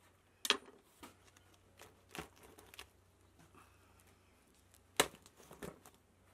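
Crusty tandir bread being handled at the clay oven, with loaves pulled off the oven wall and a cloth pad worked inside. A few dry crackles and knocks, the sharpest about half a second in and again about five seconds in.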